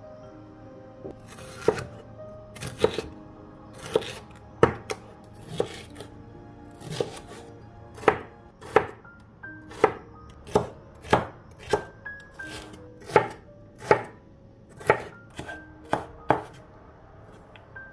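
Kitchen knife chopping a red bell pepper on a wooden cutting board: sharp knocks of the blade on the board, about one or two a second, starting about a second in.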